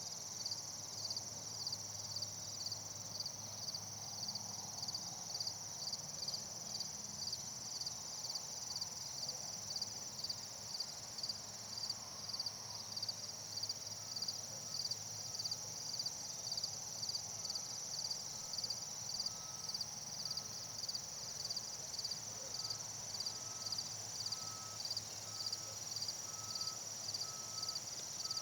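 Night-insect chorus: a steady high trill, with cricket chirps pulsing evenly about twice a second. From about halfway a faint, lower short note repeats roughly once a second.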